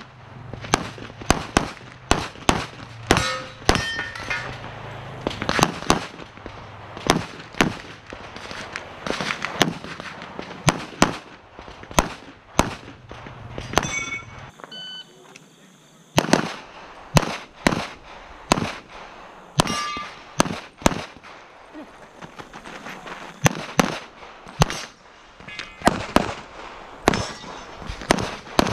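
Semi-automatic pistol gunfire during a USPSA Limited-division stage run: many sharp shots, mostly in quick pairs and short strings, with a short lull a little past halfway.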